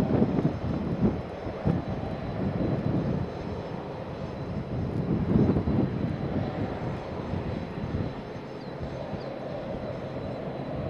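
Jet aircraft engine noise carrying across the airport, a steady rumble with a faint constant high whine. Wind gusts buffet the microphone, making the low rumble surge unevenly.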